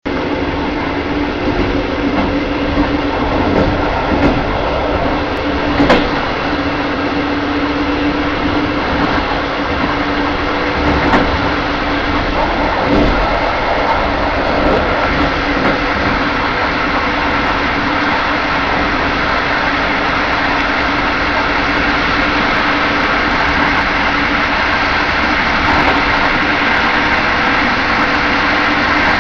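Railway carriage rolling along the track, heard from inside the last car: a steady running rumble, with the wheels clacking over rail joints and points a few times in the first half.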